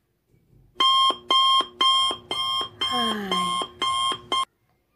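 Alarm clock beeping: a loud series of identical beeps, about two a second, that cuts off abruptly near the end. A person's voice makes a short falling sound over the beeps midway through.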